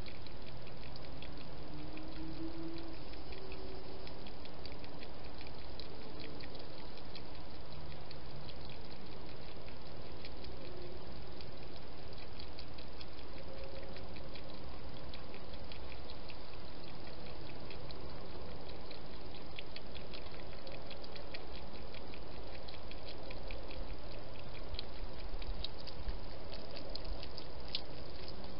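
Hedgehog chewing and smacking as it eats: many small, rapid wet clicks, thicker near the end, over a steady hiss.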